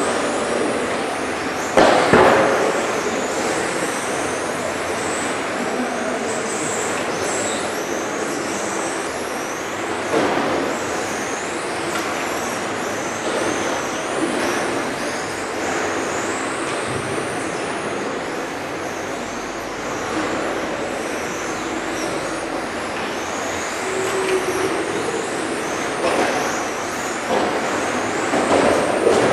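Several 1/10-scale electric RC touring cars racing on carpet: high motor whines rise and fall as the cars speed up and slow for corners, over steady tyre noise. A loud knock comes about two seconds in, with a few more knocks near the end.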